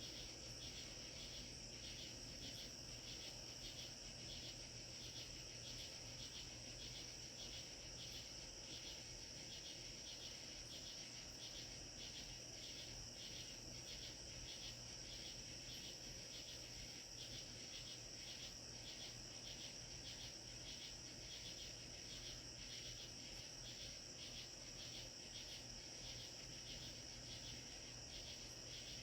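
Evening chorus of crickets: a steady high trill with regular chirps about twice a second over it.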